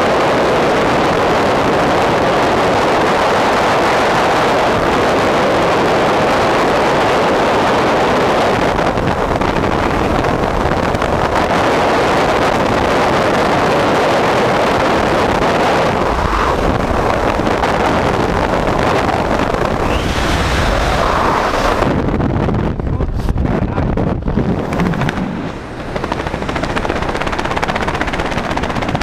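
Freefall wind rushing hard and steadily over a skydiver's camera microphone. About two thirds of the way in, a low rumble comes in; a few seconds later the hiss thins out and the sound turns into an uneven low buffeting.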